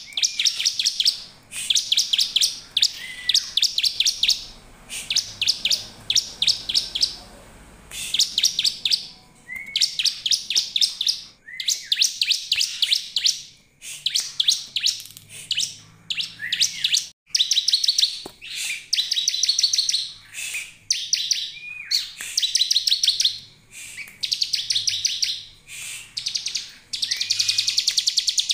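Bar-winged prinia (ciblek) singing: bursts of about a second of very fast, high repeated notes, coming one after another with short gaps, some opening with a short rising note.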